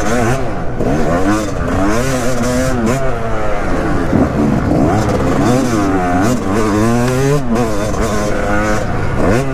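Yamaha YZ250 two-stroke motocross bike ridden hard around the track. The engine's pitch rises and falls over and over as the throttle is opened and shut through the corners and jumps.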